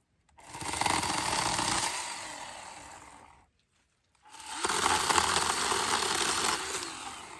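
Hart chainsaw cutting cedar branches in two runs of about three seconds each, with a short pause between them. Each run starts sharply and fades off as the cut goes through.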